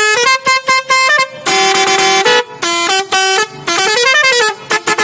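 Multi-tone musical horn on a bicycle, sounding a fast run of short beeps at changing pitches, a couple of longer held notes, and a rising-then-falling siren-like wail about four seconds in.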